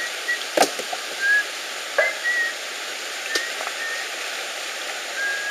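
Stream water rushing steadily over rocks, with a few sharp knocks of stone being handled. The first, about half a second in, has a deep thud, like a heavy rock set down. Brief high-pitched notes come and go throughout.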